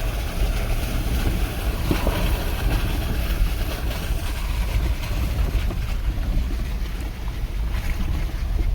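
Off-road SUV crawling along a rutted dirt trail in four-wheel-drive low range, heard from inside the cabin: a steady low rumble of engine and tyres with wind on the microphone.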